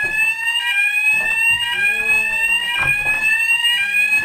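Building fire alarm sounding: an electronic sounder's rising sweep tone that resets and repeats about once a second.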